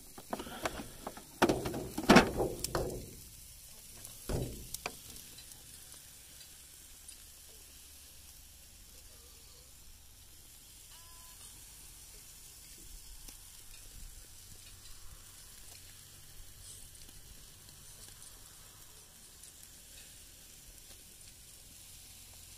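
Food sizzling on a grill, a steady faint hiss. In the first five seconds there are a few loud knocks and some clatter.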